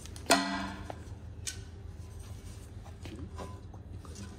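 A low steady hum with a brief vocal murmur about a third of a second in, then a few faint clicks and light scuffs.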